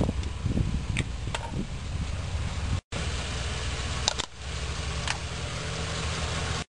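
A vehicle engine running with a steady low rumble, with a few light sharp clicks. It cuts out for a moment about three seconds in.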